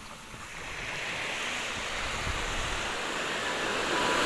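Small waves breaking and washing up a sand beach, the rush of surf swelling and loudest near the end.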